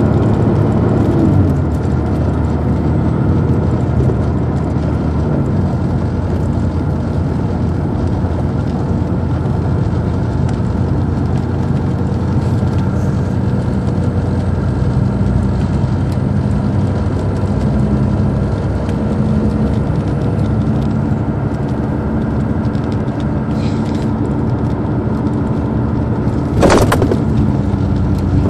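The Detroit Diesel Series 60 engine of a 2002 MCI D4500 coach running steadily, heard from on board the bus, its note rising and falling once in the first second or so. A single sharp knock near the end.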